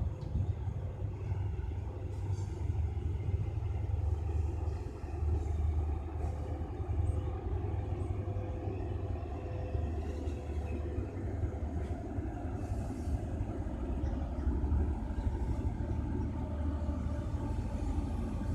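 Steady low rumble of an NJ Transit train.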